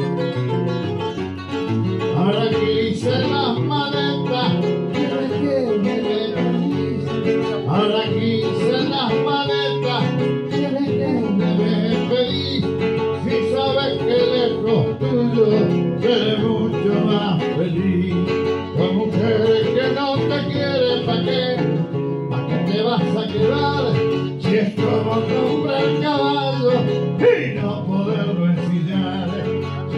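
Live Argentine folk music led by acoustic guitar, playing continuously.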